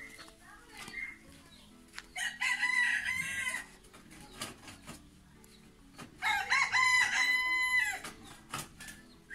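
A rooster crowing twice, about four seconds apart, each crow lasting about a second and a half.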